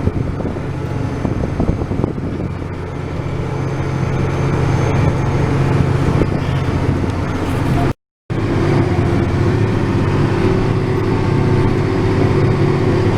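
A vehicle engine running steadily. It drops out for a moment about eight seconds in, and afterwards a steady hum joins the engine sound.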